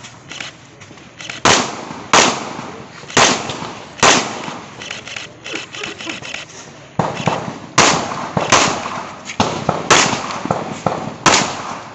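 Handgun shots fired in an IPSC practical shooting stage: a string of sharp cracks at uneven intervals, each with a short echoing tail, some louder and some fainter.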